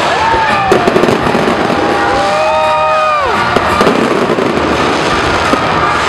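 Fireworks display going off continuously: dense crackling and popping, with whistling tones that glide up, hold and fall away.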